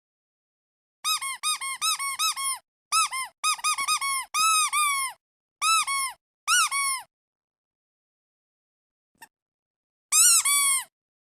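Rubber duck squeeze toy squeaking in quick runs of short squeaks, each bending up and back down in pitch, with silent gaps between the runs and a louder burst of squeaks near the end.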